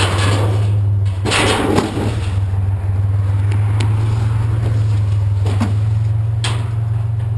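Truck engine idling steadily, with four or five sharp metal clanks and scrapes as scrap metal is handled.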